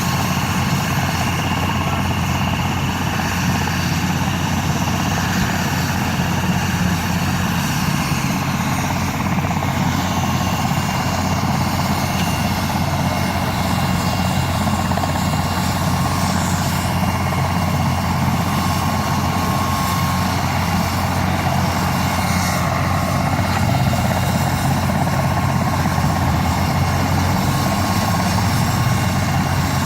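Mercy Air medical helicopter running steadily with its rotors turning, a constant rotor beat under a steady high whine.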